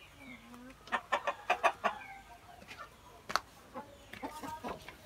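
Chickens clucking in short bursts, with a quick run of calls between about one and two seconds in and a few more near the end.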